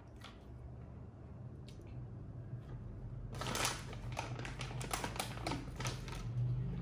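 A dense run of rapid crackling clicks starting about halfway through and lasting around three seconds, over a faint low steady hum.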